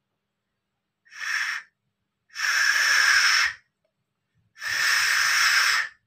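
Three breathy blows across the mouth of a glass test tube, one short and then two longer ones, giving a hiss with no clear whistle. The tube is filled with too much water to sound.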